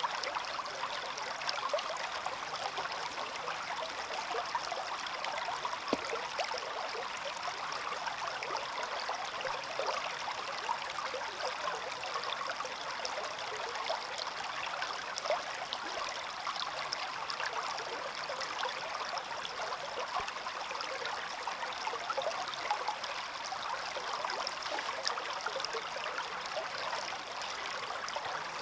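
Small stream running over stones, a steady babbling and trickling of water with many small splashes.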